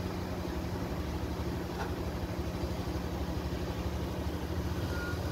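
A vehicle engine idling, a steady low hum that holds even throughout.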